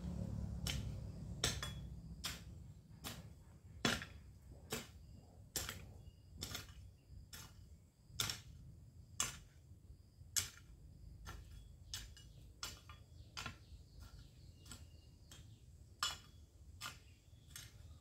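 Garden hoe chopping and scraping into dry, grassy ground in steady strokes, about one a second, each a short sharp knock.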